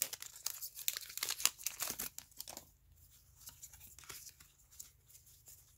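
Foil wrapper of a Pokémon Hidden Fates booster pack being torn open and crinkled: a dense crackle for about the first two and a half seconds, then only faint rustling.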